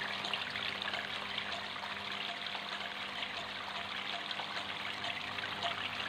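Water trickling and splashing steadily from several thin spouts of a homemade styrofoam tabletop fountain into its pebbled basin, with a faint steady low hum underneath.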